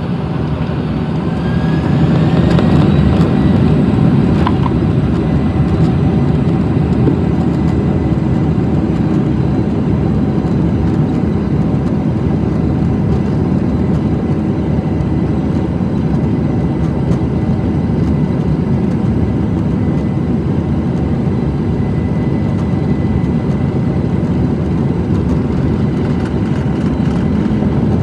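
Jet airliner's engines spooling up to takeoff power, heard from inside the passenger cabin. A whine rises over the first couple of seconds, then a loud steady rumble of engines and runway roll.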